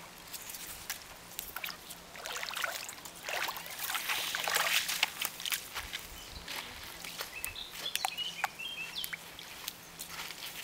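Small waves lapping and sloshing on a pebble shore, with crackling crunches and splashes as a puppy's paws step over wet gravel into the shallows; the water swells loudest about four seconds in. A few short high chirps come near the end.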